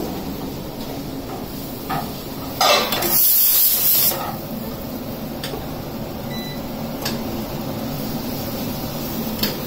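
Pressure cooker venting steam in a short, loud hiss about three seconds in, lasting a little over a second. A few light clicks of a spatula against the pans come before and after it.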